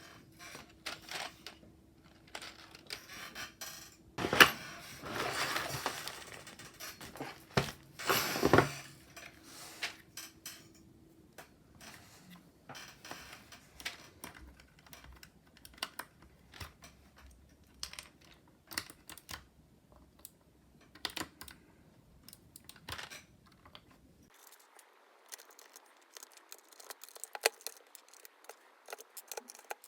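Plastic keycaps clicking and clattering against each other as they are handled, with two louder rustling bursts a few seconds in and about eight seconds in.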